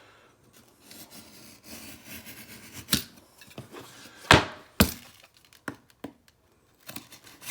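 A blade cutting a piece of drywall (Sheetrock), with scraping and scattered clicks and a few sharp cracks and knocks, the loudest about four seconds in.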